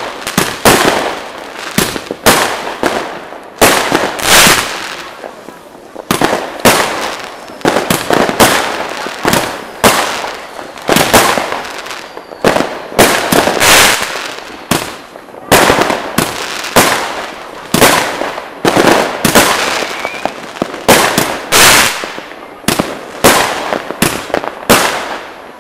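Fireworks and firecrackers going off in rapid, irregular succession: sharp bangs about one to two a second, some trailing into hissing crackle.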